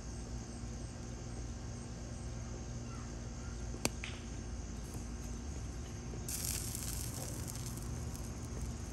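Wood fire burning in a fire pit under a turning rotisserie chicken, with one sharp pop about four seconds in and a brief hiss a little after six seconds.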